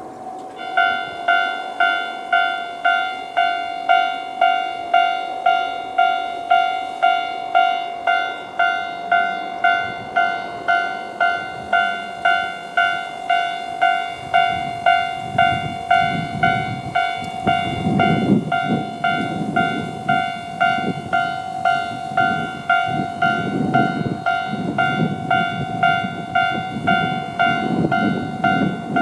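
Japanese level-crossing warning bell, the standard electronic crossing tone at a slow tempo, starting about half a second in and ringing about twice a second. From about halfway a Yamagata Railway YR-880 diesel railcar approaches and runs through the crossing, its low rumble and wheel clatter on the rails growing under the bell.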